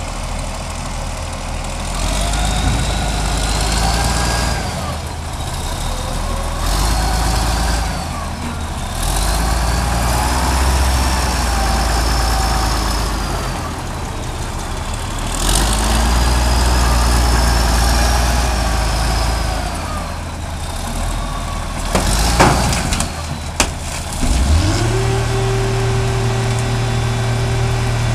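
John Deere 544B wheel loader's diesel engine working under load, revving up and falling back again and again as it pushes and lifts a van. Near the end a single sharp metal crack, then a steady deep hum starts up.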